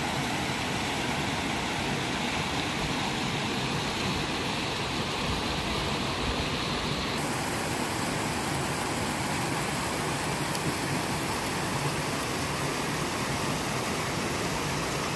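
Lower Yosemite Falls: a waterfall's falling water makes a steady, even rushing noise, with a slight change in tone about seven seconds in.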